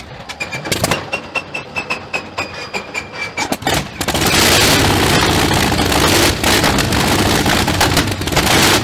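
Rapid clicking of cockpit switches over a high, fast-repeating beep. About four seconds in, a loud, dense, rattling engine-like noise takes over as the engine start switch is worked.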